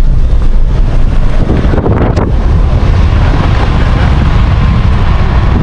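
GWM ute driving on a red dirt track: steady road and tyre rumble with heavy wind buffeting on the microphone.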